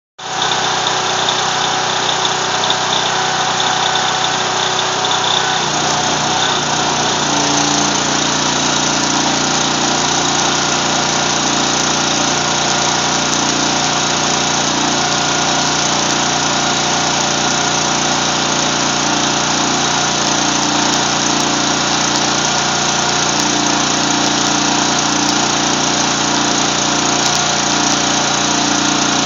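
Engine-driven welder running steadily, its engine note changing about six seconds in and then holding even.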